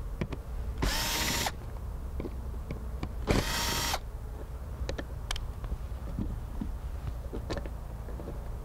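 Hitachi cordless drill-driver running in two short bursts, about two seconds apart, backing out the screws of a plastic RV clearance light. A few light clicks follow as the light is handled.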